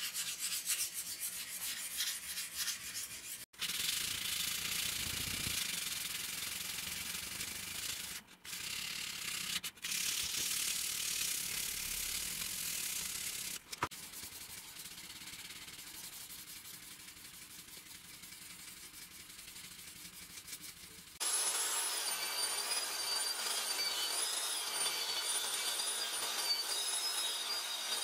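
Abrasive rubbed by hand back and forth along a rusty steel sword blade, in several short takes, to clean off the rust. About three quarters of the way in, it gives way to a motor-driven wheel spinning at speed with the blade held against it, a steady hiss with a high whine that wavers in pitch.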